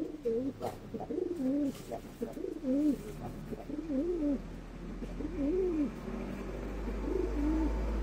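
Chila pigeon cooing in courtship display: six rolling coos, each rising and falling in pitch, about one every second and a bit. A low rumble builds under the last few coos.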